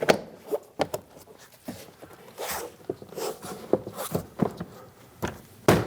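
Plastic retaining clips of a 2017 Chevrolet Malibu's interior door panel snapping into the door as the panel is pressed in around its edge: a run of irregular clicks and knocks, the loudest near the end.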